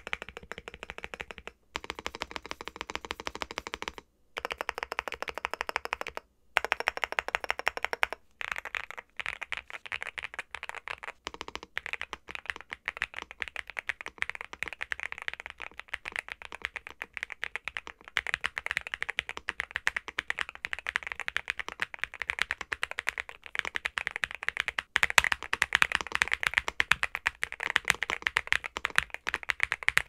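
Typing on a NuPhy Gem80 mechanical keyboard with stock Gateron x NuPhy Raspberry 46 g linear switches, an FR4 plate, the stock silicone sock mount and double-shot PBT MSA-profile keycaps. It is a fast run of keystrokes with a few short breaks in the first eight seconds, then continuous typing.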